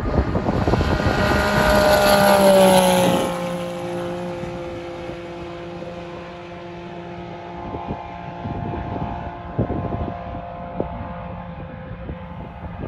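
Off-road race buggy's engine running hard as it passes close by, its pitch dropping as it goes past about three seconds in, then a steady drone fading as it drives away.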